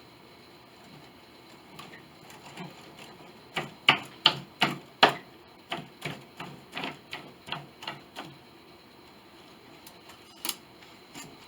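A run of sharp taps or knocks, about three a second for roughly five seconds, with a few softer taps before it and two more spaced taps near the end.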